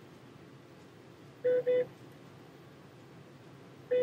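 An electronic beeper sounding a pair of short, same-pitched beeps about a second and a half in and another pair near the end. It repeats about every two and a half seconds over a low steady background hum.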